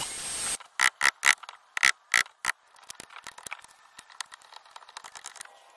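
A Makita cordless trim router's steady hiss cuts off about half a second in. Six sharp clicks follow over the next two seconds, then faint irregular ticking as a pointed metal tool picks at the freshly routed recess in the timber.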